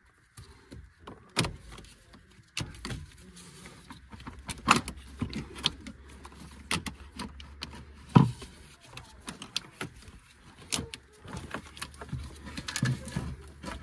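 Engine intake manifold being tugged and wiggled free by hand: irregular clicks, knocks and rubbing of the manifold and its hoses and fittings, with a few sharper knocks.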